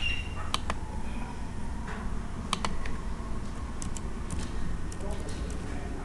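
A mouse click, then computer keyboard keys tapped one at a time, a dozen or so sharp separate clicks, over a steady low hum.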